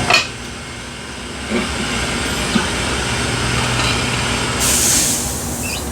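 Tire changer machine working a tire off its rim: a sharp knock at the start, then the machine's steady low motor hum, and a short burst of compressed-air hiss from its pneumatic valve near the end.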